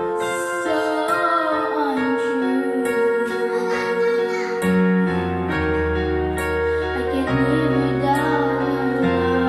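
A young girl singing into a corded microphone over a karaoke backing track with piano or keyboard; deep bass notes come in about halfway through.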